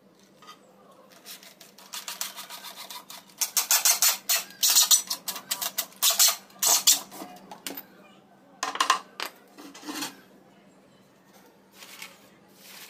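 Corded electric drill boring into the edge of a plywood panel in a series of short, loud bursts, with a few more brief bursts near the end.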